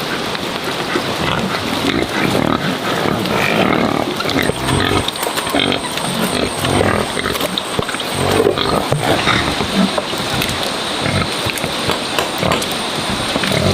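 Pigs grunting as they feed, a dense run of overlapping calls with no pause.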